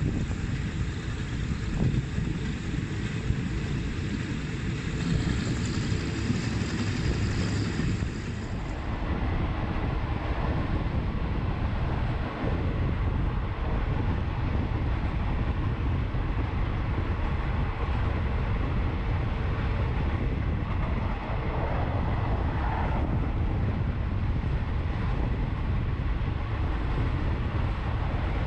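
A passenger train running along the track, heard from on board as a steady low rumble with wind buffeting the microphone. A few sharp knocks come in the first few seconds, and the sound turns duller about eight seconds in.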